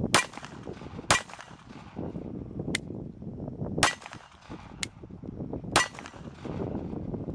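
Cobra CA .380 ACP semi-automatic pistol firing four shots at uneven intervals, with two fainter sharp clicks between them. Wind rumbles on the microphone.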